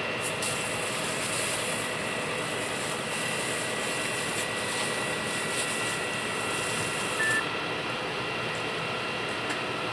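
Fire engine running steadily, a continuous drone with a few fixed tones in it. A high hiss rides over it and stops about seven seconds in.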